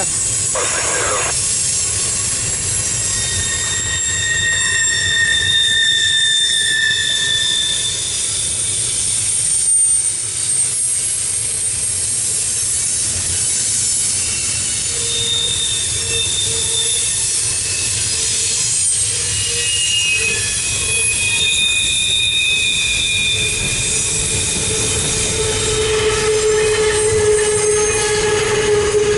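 Double-stack intermodal freight train rolling past, its wheels squealing over a steady rumble. The squeal comes and goes in high-pitched tones, shifting to a lower, stronger squeal near the end.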